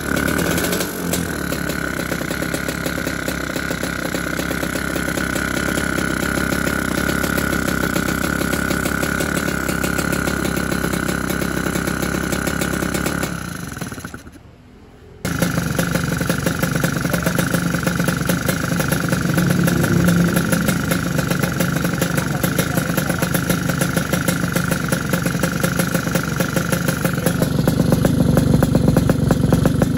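Yamaha RX two-stroke single-cylinder motorcycle engine running on a newly fitted PWK 33 carburettor that is still being tuned, without the 'ngorok' note being sought. The sound cuts out for about a second halfway through, then the engine runs on and grows louder and deeper near the end.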